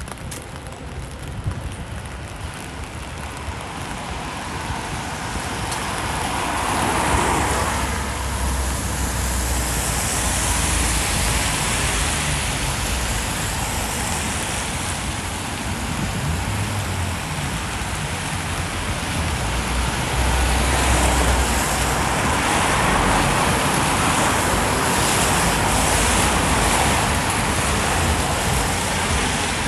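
Road traffic passing on a wet road: tyre hiss and engine rumble swell as vehicles go by, once about seven seconds in and again from about twenty seconds, over a steady wash of rain.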